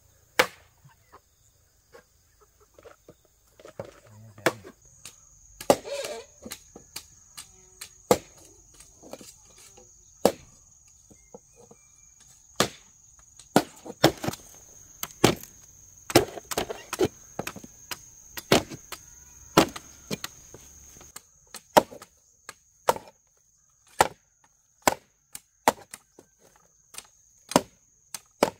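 Hatchet chopping green bamboo poles: repeated sharp knocks, irregular but often about one a second. A steady high insect drone comes in about five seconds in and keeps on behind the strikes.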